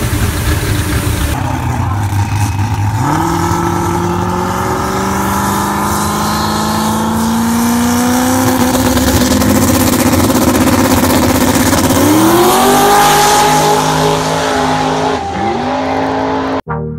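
Car engine running hard on a chassis dyno, then a drag car's engine accelerating at the strip: its note climbs steadily, drops and climbs sharply again about twelve seconds in and once more about three seconds later, as it shifts up through the gears.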